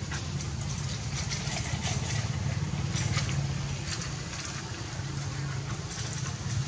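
A small engine running steadily at idle, a low hum, with scattered faint clicks over it.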